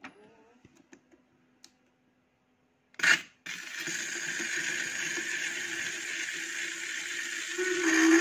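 A few faint handling clicks, then about three seconds in a sudden thump as the turntable stylus is set down on a 1940s shellac 78 rpm record. After it comes the steady hiss and crackle of surface noise from the lead-in groove, and the music starts to come in near the end.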